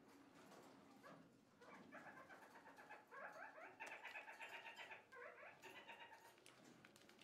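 Kakariki parakeets chattering: a rapid run of short repeated notes starting about two seconds in and lasting about three and a half seconds, with a brief break near the end. Faint scattered clicks come through around it.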